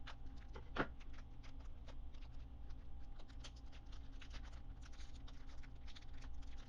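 Foil booster pack wrapper being handled and torn open: a continuous run of small crinkles and crackles, with a sharper crackle about a second in.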